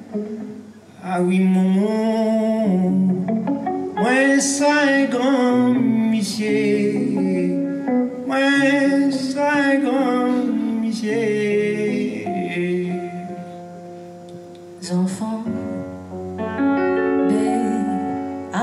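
Live song: a singing voice with vibrato over a plucked-string accompaniment. It drops to a softer passage of held notes about three-quarters of the way through, then picks up again.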